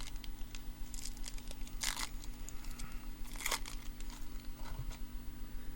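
Topps Series 1 foil card pack wrapper being torn and crinkled, with light clicks and rustles of cards handled, including two short tearing bursts about two and three and a half seconds in.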